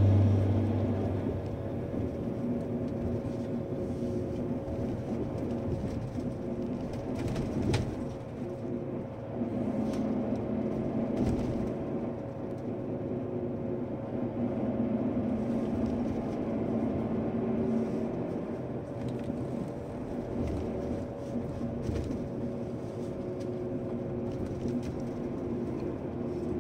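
A vehicle running steadily, a low rumble with a faint constant hum, and an occasional light click, the clearest about eight seconds in.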